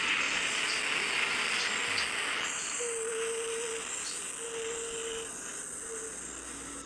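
A steady, high buzzing hiss that eases off a little after a couple of seconds. A faint steady hum breaks in and out several times in the middle.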